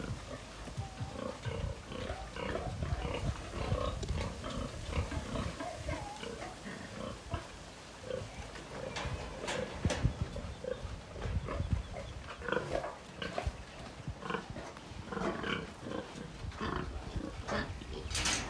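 Sows grunting repeatedly in their pens, short low grunts one after another, with a few sharp knocks about halfway and near the end.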